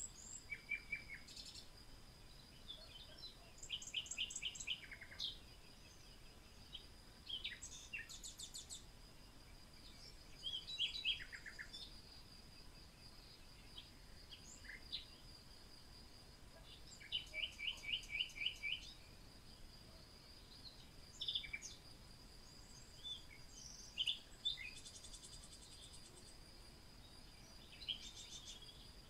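Songbirds chirping and trilling in short, scattered calls, over a steady high-pitched whine.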